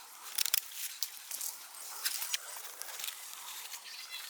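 Irregular rustling and crackling of dry leaves and twigs, with scattered light clicks, as a person moves or shifts in undergrowth.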